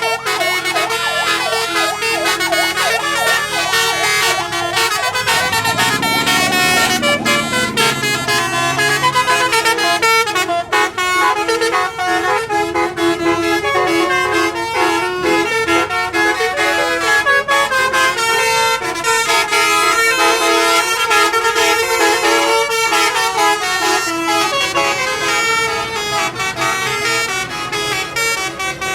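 Bus telolet horn, a Basuri multi-tone electric horn, playing a quick melody of stepped notes without a break. A lower sliding tone runs underneath for a few seconds, starting about five seconds in.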